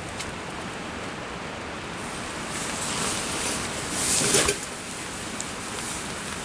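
Steady rain and wind noise, with a brief louder rustle of rain-poncho and tent fabric about four seconds in.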